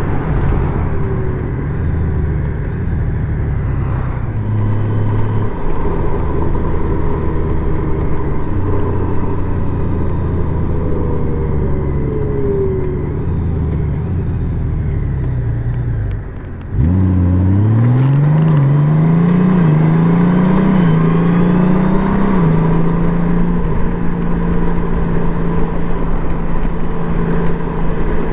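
Honda Gold Wing motorcycle engine running under way at a fairly steady pitch. About 16 seconds in it dips briefly, then the pitch climbs with several quick rises and drops as it pulls away through the gears, and it settles into a steady cruise.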